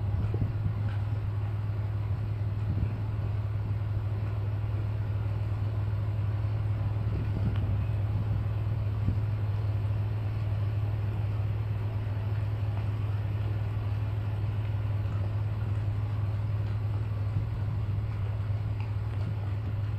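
An old ship's marine diesel engine running steadily, a constant low drone that neither rises nor falls.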